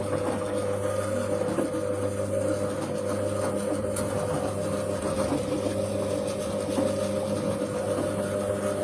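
Siemens washing machine running: a steady motor hum with faint irregular ticking over it.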